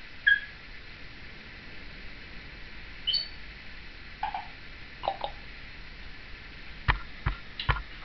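Timneh African grey parrot giving a few short whistles and chirps spaced seconds apart, with some lower-pitched calls in the middle, then three sharp clicks near the end.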